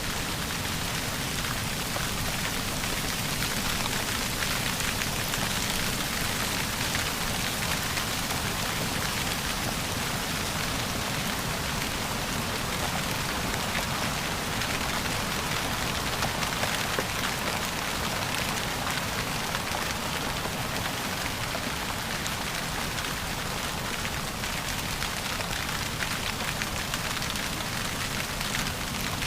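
Steady rain falling, a continuous even hiss with fine scattered drop ticks.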